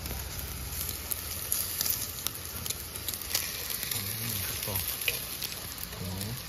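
Sliced pork sizzling on a hot mookata dome grill pan over glowing coals: a steady frying hiss with scattered sharp crackles of fat.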